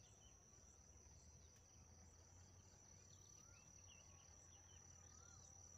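Faint field ambience: an insect's steady, high-pitched trill, with a few short bird chirps over it.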